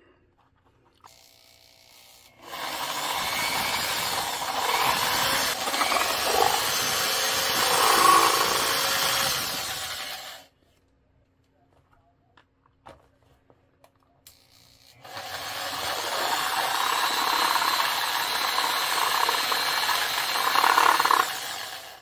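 Power drill with a step drill bit boring holes through the thin plastic wall of a desk fan's base, in two long bursts of about eight and seven seconds with a short pause between.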